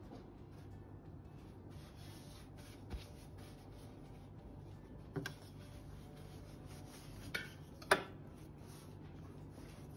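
Light handling sounds at a metal enamel baking tray: a few short knocks and rubs, the loudest about eight seconds in, over a faint steady low hum.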